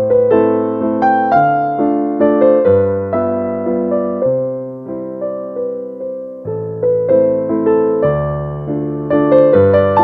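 Slow, gentle solo piano music, each note or chord struck and left to fade before the next.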